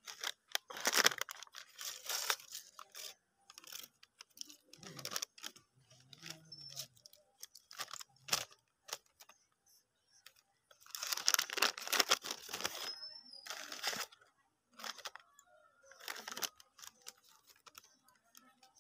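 Paper medicine packets being torn open and crinkled by hand, including a sachet of medicine powder for mixing into a solution: bursts of tearing and rustling, loudest about a second in and again around eleven to thirteen seconds.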